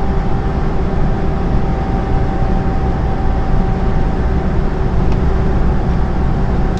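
Inside a lorry cab at motorway speed: the steady drone of the engine and the road noise, with a faint steady whine above it.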